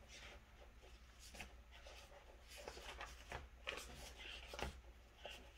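Faint rustling of paper and sticker sheets being handled, with a handful of small clicks and taps in the middle.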